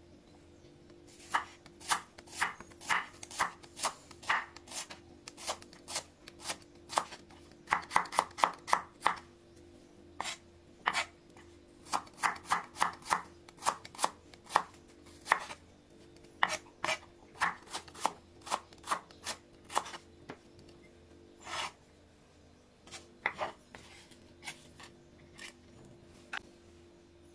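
Chef's knife slicing shallots thinly on a bamboo cutting board: a long run of sharp knife taps on the wood, about two a second, with a quick flurry about eight seconds in and growing sparse near the end.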